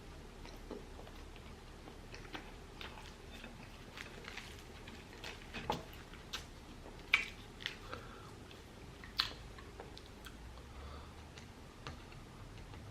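Close-miked chewing and wet mouth sounds of a person eating chicken biryani, with irregular small clicks and smacks, a couple of them sharper about seven and nine seconds in.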